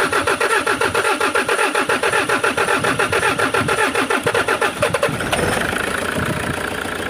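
Toyota HiAce's 2KD four-cylinder diesel engine turning over on the starter with a fast, even chugging, then catching about five seconds in and settling into an idle. The engine has a dead, misfiring injector.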